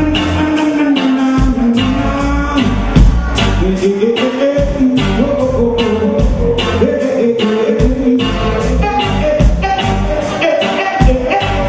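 Live reggae band playing: a vocalist singing over drums, bass, electric guitar and tenor saxophone, with a steady drum beat and held melodic lines.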